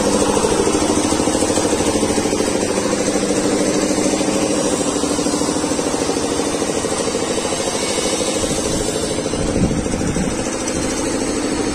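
A steady engine-like drone with a fast even pulse, running unchanged throughout.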